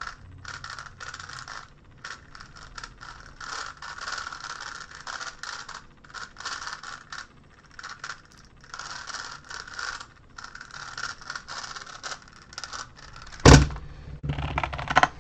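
GAN Megaminx being turned at speed: rapid, irregular clicking and rattling of the plastic faces. It ends in a loud thump near the end as the puzzle is put down and the hands hit the timer pads.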